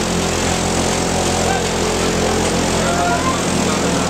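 Steady drone of a large stationary engine running at a constant speed, with no change in pitch or level.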